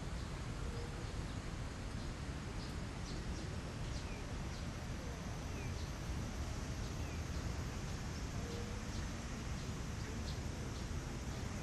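Steady outdoor background noise with a low rumble, with faint short high chirps of small birds scattered through it.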